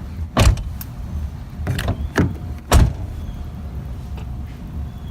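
A Toyota Camry's outside door handle and latch being worked: four sharp clunks and clicks over the first three seconds, over a steady low rumble.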